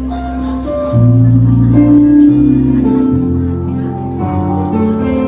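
Instrumental break of a pop ballad with no singing: band accompaniment with plucked-string guitar over a bass line, the chords changing about once a second.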